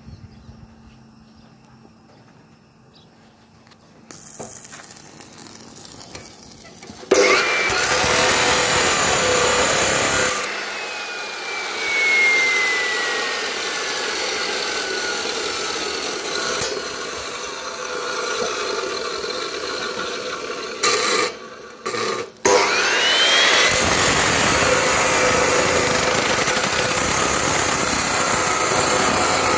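Electric abrasive cut-off saw grinding through a large steel beam, loud and steady from about seven seconds in. The whine slowly falls in pitch for a while. The saw cuts out briefly a little after twenty seconds, spins back up with a rising whine and goes on cutting.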